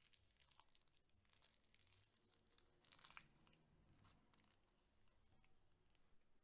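Near silence with faint crinkling and crackling handling sounds, the loudest crackle about three seconds in.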